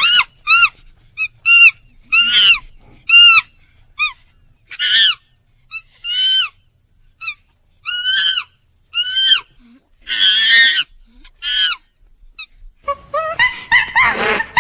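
A monkey calling in a series of short, high-pitched squeals, each rising then falling in pitch, about one a second, with a few longer, rougher screeches among them. Near the end the calls come quickly and overlap.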